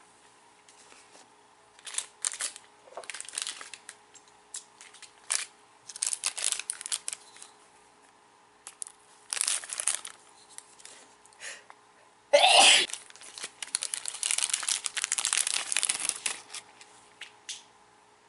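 Plastic wrapper of an individually packed sweet potato chinsuko biscuit crinkling in the fingers, in short scattered rustles, then torn open with a sharp rip about two-thirds of the way in. A few seconds of dense crinkling follow as the biscuit is worked out of the packet.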